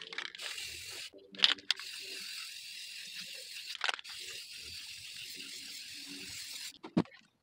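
Rust-Oleum Paint + Primer aerosol spray can hissing in long sprays, with a couple of short breaks about a second in, stopping near the end. Two sharp clicks stand out, the louder one about a second and a half in.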